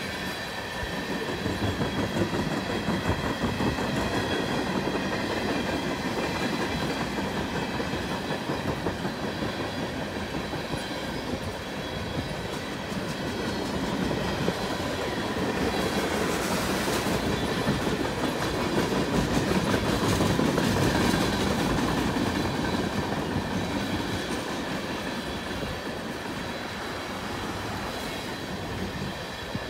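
Freight train's tank cars and hopper cars rolling past, steel wheels clicking over the rail joints in a continuous clickety-clack. It swells louder about halfway through.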